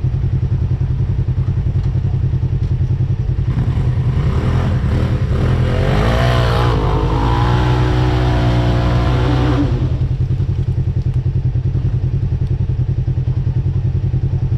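Off-road vehicle engine running steadily with a fast low pulse. From about 4 to 10 seconds in, an engine revs, rising and wavering in pitch, then falls back.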